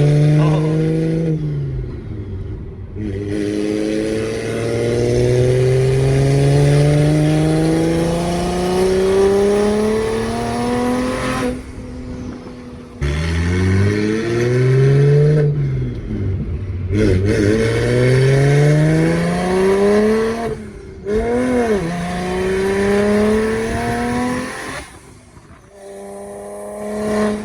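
Turbocharged inline-six of a BMW 335i with a big single Precision 6266 turbo, pulled hard through the gears of its manual gearbox. The engine note climbs steadily in pitch through each gear, broken by short gaps and drops in pitch at the upshifts, several times over.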